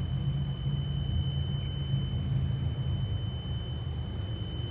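Mercury 50 hp outboard's warning buzzer sounding one steady, high-pitched tone, switched on by a diagnostic-tool buzzer activation test. A low steady rumble runs underneath.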